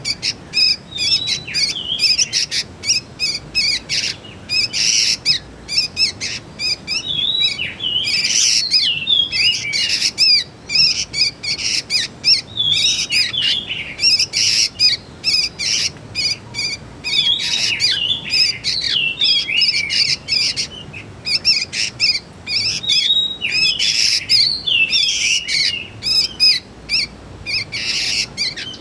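Young sooty-headed bulbul (kutilang) calling: rapid, high chirps and short sliding notes repeated without pause.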